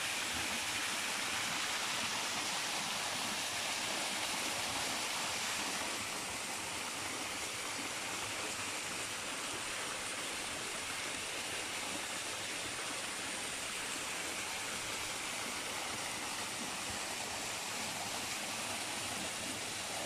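Steady rush of a waterfall pouring down onto rock and into a pool, a little quieter from about six seconds in.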